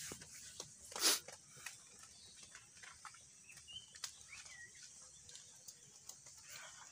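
Quiet rustling and crinkling of a plastic bag and dry leaves being handled, with one short, louder rustle about a second in and small scattered ticks. Two faint bird chirps come midway.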